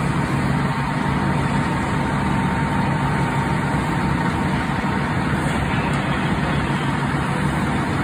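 Fire engine running steadily at the fire scene: a deep, constant engine drone with a thin steady whine above it.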